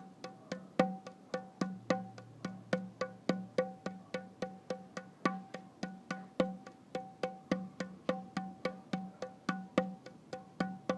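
Music: a quick, even clicking percussion pattern, about three to four strikes a second, over a held low tone.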